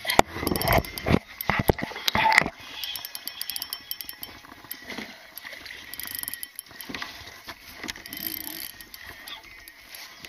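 Shimano Nexave spinning reel clicking and ratcheting as it is worked during a fish fight, with several loud knocks and clatter in the first two to three seconds.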